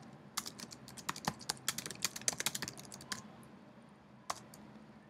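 Typing on a computer keyboard: a quick run of key clicks for about three seconds, then one more click about a second later.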